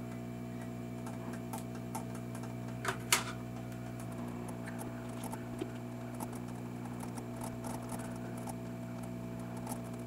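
Steady low electrical hum with a few faint sharp clicks, the clearest two close together about three seconds in.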